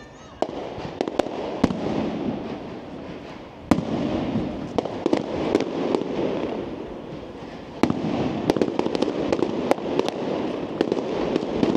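Aerial fireworks display: sharp bangs of bursting shells over a dense, continuous crackle. The bangs come thicker and faster from about eight seconds in.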